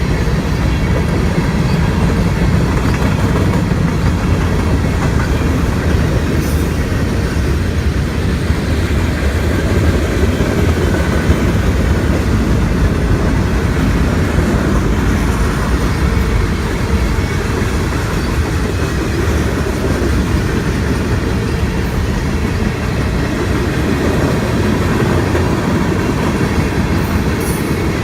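A train running past: a steady, loud rumble of wheels on the rails.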